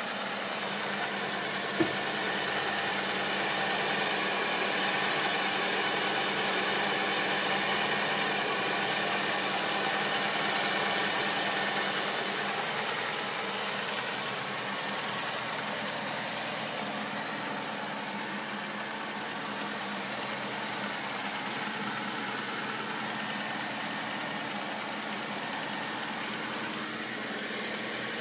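1999 Saturn SC2's 1.9-litre twin-cam four-cylinder engine idling steadily, heard close up in the engine bay. A single sharp click about two seconds in.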